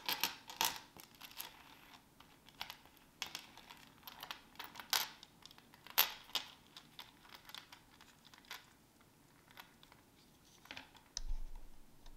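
Light, irregular clicks and clinks from a rose gold Cuban link chain and plastic digital calipers being handled, the caliper jaws closing on the chain's links. A brief low thump near the end.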